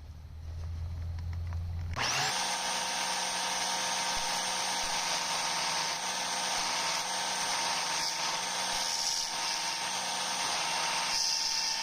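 Belt sander running: a low motor hum for the first two seconds, then a loud, steady sanding noise with a faint whine starts abruptly about two seconds in and carries on.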